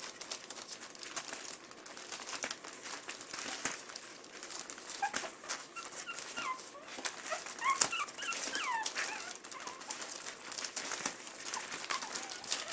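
Young Maltipoo puppies whimpering and squeaking in short high, gliding cries, mostly in the middle, over a steady crinkling of newspaper as they move about on it.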